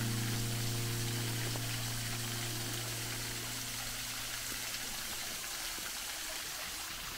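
Steady rushing and splashing of a small garden waterfall falling into a rocky stream bed. A held chord of background music fades out over the first couple of seconds.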